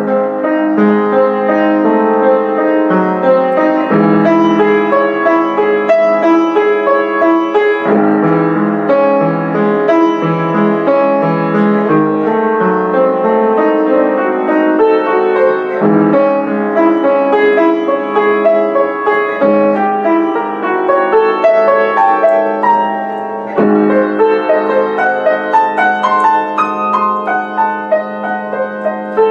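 Solo piano playing a classical piece, its chords changing about every four seconds over a steady, repeated low note.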